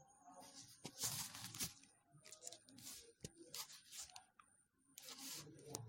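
Near silence, with faint scattered rustles and clicks.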